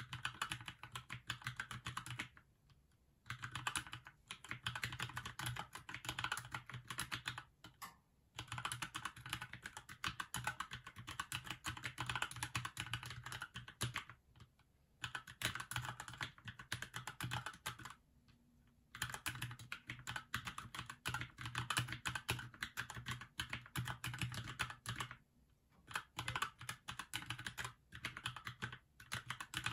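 Fast typing on a Keychron mechanical keyboard: rapid runs of key clicks, each several seconds long, broken by short pauses of about a second between phrases.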